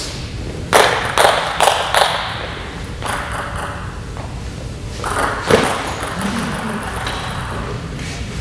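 Table tennis ball clicking off paddles and table in a rally: four sharp strikes about 0.4 s apart about a second in, then another strike a few seconds later.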